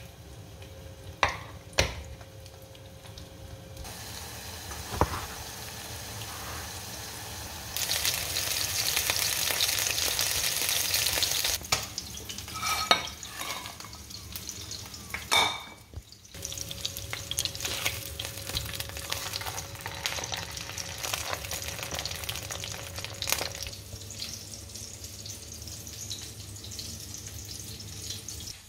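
Hamburger patty frying in oil in a nonstick frying pan, a steady sizzle that gets louder in the middle, with a few sharp knocks against the pan. The sound changes abruptly several times.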